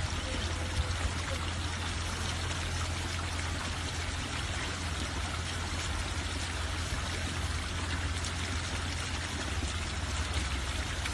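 Steady rush of water running into a garden fish pond, with a steady low hum underneath.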